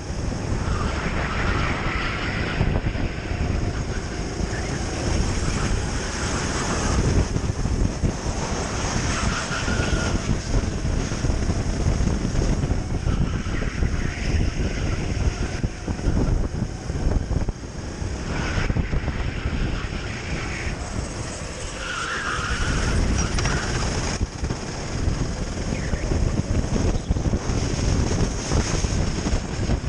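Onboard sound of a Sodi RT8 rental kart's single-cylinder four-stroke engine running hard at racing speed, its note rising and falling as it slows for corners and accelerates out, with wind buffeting the microphone.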